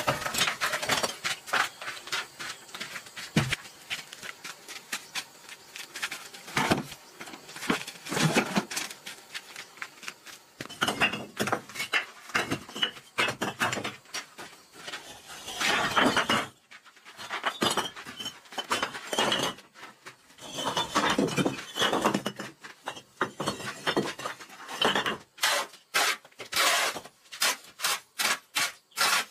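Building work with hand tools on brick and concrete: scraping, knocking and clinking in uneven spells, with a few squeaks. Near the end comes a quick run of sharp metal-on-concrete strikes as rubble and set mortar are chipped off a concrete floor.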